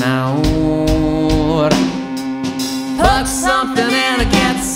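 A song played by a band: a singing voice over guitar, bass and drums, with long held notes underneath.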